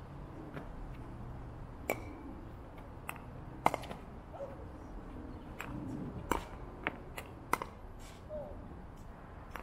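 Sharp pops of a pickleball being struck by paddles and bouncing on the court during a rally, about a dozen irregularly spaced hits, some with a brief ringing note.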